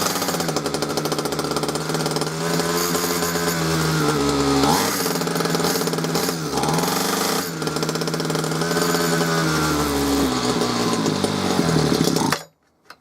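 Ryobi RHT2660DA hedge trimmer's two-stroke engine running on its replacement carburettor, its speed sagging and picking up again a couple of times. It slows near the end and then cuts out suddenly.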